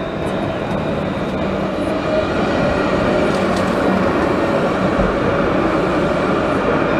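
Alstom Citadis light-rail tram running past on street track, a steady rolling noise with a hum, growing a little louder about two seconds in as it draws level.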